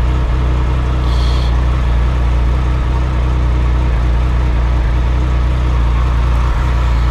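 Triumph Sprint ST 1050's three-cylinder engine, fitted with a TOR aftermarket exhaust, idling steadily at operating temperature. The throttle bodies are slightly out of balance, one cylinder reading about 10 above the others.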